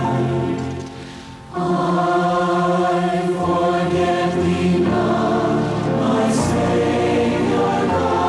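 A congregation singing a devotional song together as a choir, breaking off briefly about a second in before the next phrase.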